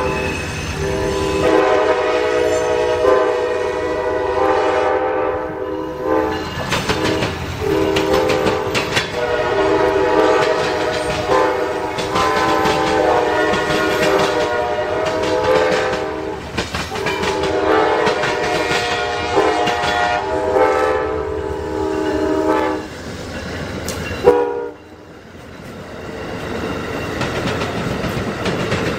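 A locomotive's multi-chime air horn sounds long blasts with short breaks while a train rolls through the crossing. About 24 seconds in, the horn cuts off abruptly with a click. The rumble and wheel noise of a passing Amtrak passenger train then swell up.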